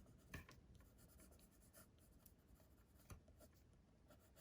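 Faint scratching of a watercolour pencil colouring on cardstock, with two light taps, about a third of a second in and about three seconds in.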